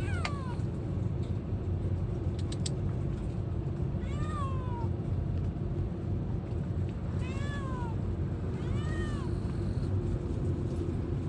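Street cat meowing four times, short arched calls that rise then fall in pitch, over a steady low background rumble.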